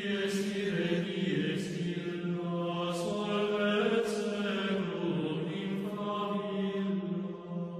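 Slow vocal chant in a low voice, long held notes gliding gently from pitch to pitch, beginning to fade near the end.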